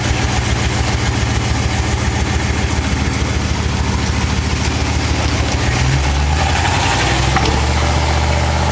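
Second-generation Dodge Ram's V8 running through a new Flowtech Raptor muffler on a test drive; the engine note changes about six seconds in.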